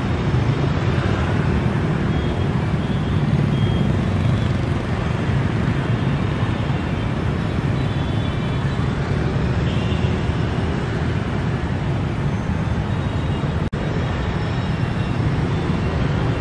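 Dense rush-hour city traffic: a steady mass of motorbikes and cars running and passing close by, with a momentary dropout near the end.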